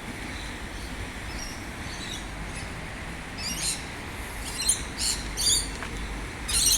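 Birds chirping: a run of short, high calls that start about halfway through and come several times a second, over a steady low background rumble.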